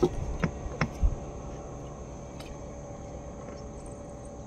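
Several light clicks and a dull knock in the first second as fishing gear is handled in a small boat, then a faint steady background hum.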